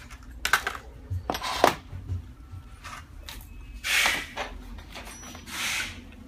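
Small metal machine parts being handled: a series of clinks and knocks, then two short bursts of hiss about four and five and a half seconds in.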